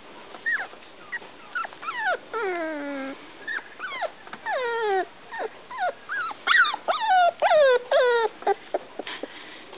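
Icelandic sheepdog whining: a string of whimpers that each fall in pitch, a few of them drawn out, coming quicker and louder over the last few seconds.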